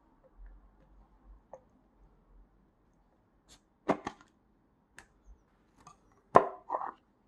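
Eating utensil clicking and knocking against a bowl a few times while rice is mixed with seasoned raw crab, with short scattered strikes and the loudest pair near the end.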